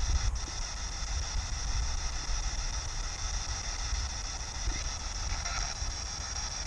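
Steady radio static hiss from an SB7 spirit box sweeping the radio band, with a low rumble underneath and a brief click just after the start.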